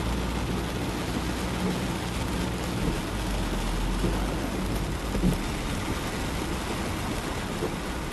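Heavy thunderstorm rain falling steadily: a constant dense hiss with a low rumble underneath.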